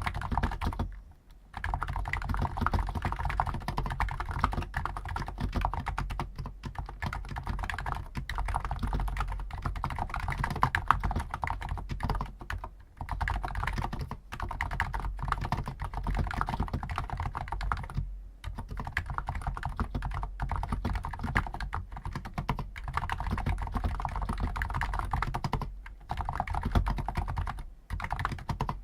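Steady, fast typing on a Hansung GTune CHL5 XRGB electro-capacitive (non-contact) keyboard with stock 50 g switches, keystrokes following one another in a dense stream. Typing stops briefly about a second in and a few more times later on.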